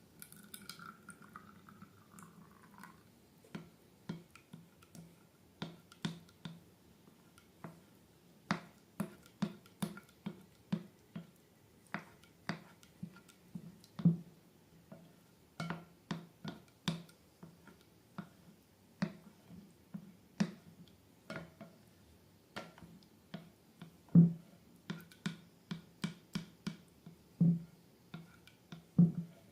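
Slime being squeezed and poked by hand, giving a run of short sticky clicks and squelching pops, irregular and roughly one or two a second, louder towards the end. A faint squeak sounds in the first few seconds.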